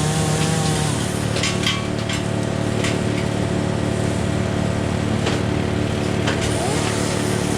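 Tractor diesel engine running steadily, with a few short sharp cracks over it.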